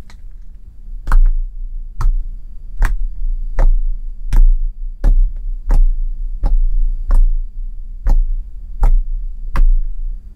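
Fingertips poking into homemade water-and-sugar slime on a table, each poke a sharp pop with a dull thud, about one every three-quarters of a second, a dozen or so in all.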